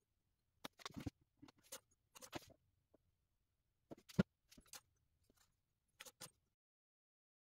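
Scattered light clicks and knocks from handling at an engine's oil filler: the plastic oil jug, filler funnel and dipstick being moved, the sharpest knock a little past four seconds in.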